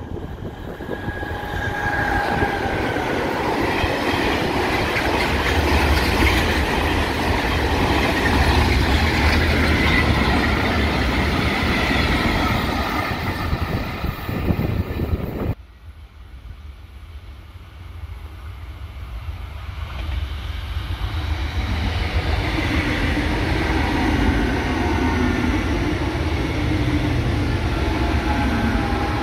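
A freight train hauled by two Class 4700 electric locomotives passes: a loud steady rumble and rattle of locomotives and wagons on the rails, with wheels squealing at times. The sound cuts off suddenly about 15 seconds in, and a silver CP Class 2240 electric multiple unit approaches, its rumble building steadily.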